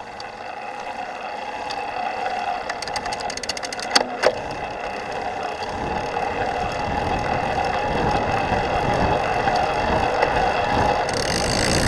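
Yamaha PW-Series ST e-bike drive unit running on a low assist level, with a scratchy chirping and chattering that the owner says does not sound quite right. A quick run of ticks and two sharp clicks come about three to four seconds in, and a rushing noise grows from about six seconds on.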